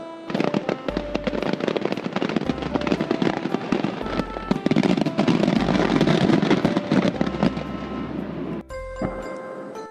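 A dense crackling sound effect, like fireworks or firecrackers, over a simple melody of held notes. The crackling starts just after the beginning, is loudest around the middle and stops near the end, leaving the melody alone.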